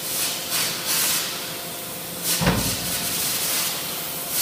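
Wood-shaving baling machine at work: loose wood shavings rustling and hissing in short rushes, with one heavy low thump about halfway through.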